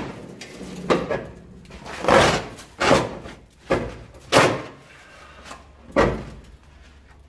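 The roof lining of a Holden WB ute cab being ripped down by hand in a series of hard tugs, each a short burst of rustling, tearing and knocking, about six in all. The hessian padding behind the lining is coming away near the end.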